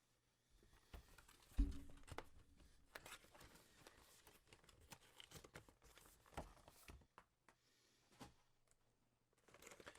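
Faint handling of cardboard and plastic packaging: light rustling and crinkling with scattered small clicks, and a soft thump about one and a half seconds in.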